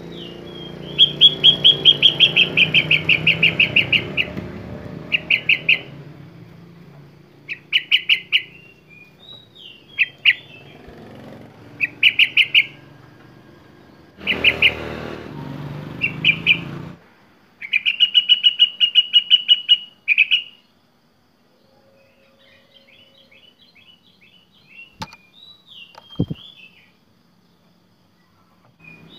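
Sooty-headed bulbul singing a varied song of imitated phrases: fast rapid-fire trills of repeated notes broken by short pauses, then softer short whistled notes in the second half. A low background hum runs under the first half, and two sharp clicks come near the end.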